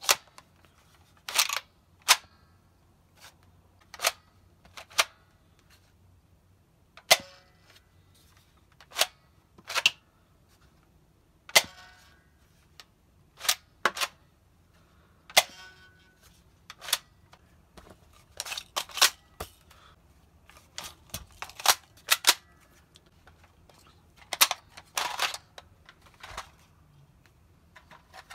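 Spring-powered toy foam-dart blaster, a Glock-style pistol in a carbine kit, fired shot after shot: sharp plastic snaps about one to two seconds apart. The slide is pulled back to cock it between shots, and this makes quicker runs of clicks about two-thirds of the way through.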